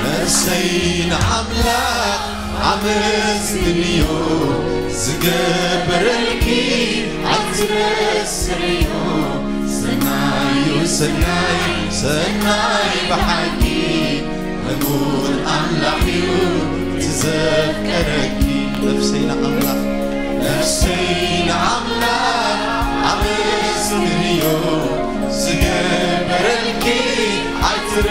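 A mixed choir of male and female voices singing a gospel worship song into microphones, over a backing with a steady beat and sustained low bass notes.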